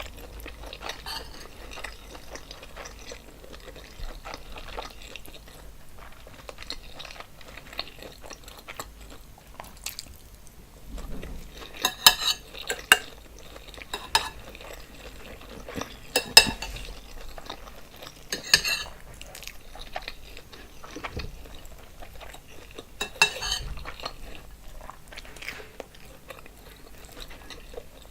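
Close-miked eating of a seafood boil in sauce: soft wet chewing and crackling, broken by about half a dozen sharp clicks and clinks against a dish, the loudest about twelve and sixteen seconds in.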